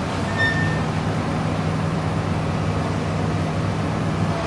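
Hitachi long-reach demolition excavator's diesel engine running steadily, under the hiss of steady rain and passing street traffic. A brief high squeal sounds about half a second in.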